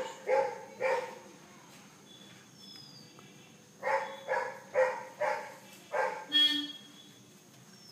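A dog barking in two bouts: three barks at the start, then a quicker run of six barks beginning about four seconds in.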